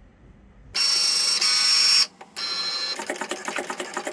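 Cricut Maker cutting machine's motors starting a foil-transfer job. The carriage and rollers run with a high whine for about a second, stop briefly, run again for half a second, then break into a fast stutter of short moves as the foil tool traces the design.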